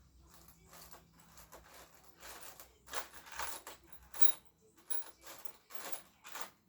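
Small metal parts clinking and rattling in a string of short, irregular clicks, as bolts and fittings are handled and sorted by hand.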